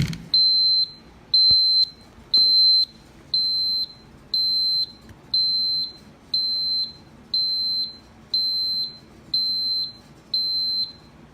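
Schlage KN150 electronic lock's built-in alarm sounding in alarm mode: a loud, high-pitched beep about half a second long, repeating about once a second, which stops near the end.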